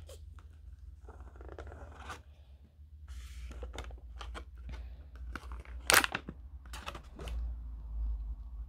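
Hands handling a cardboard gift box and its insert and a plastic earbud charging case: rustling and scraping of cardboard with scattered clicks and taps, the loudest about six seconds in.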